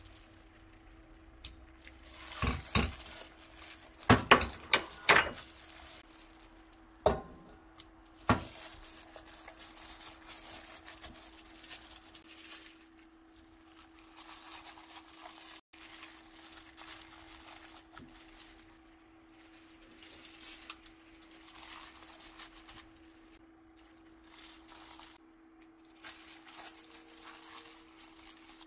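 A handful of sharp clattering knocks of kitchenware in the first eight seconds, then soft rustling of a plastic glove as pieces of Spanish mackerel are laid onto kimchi in a stainless steel pot. A faint steady hum sits underneath.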